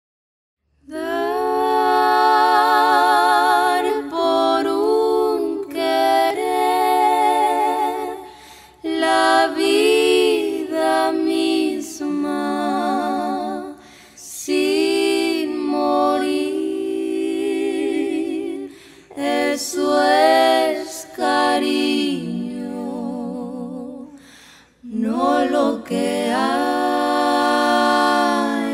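A small vocal group singing a cappella in close harmony, with vibrato. The voices come in about a second in and sing in phrases separated by short pauses.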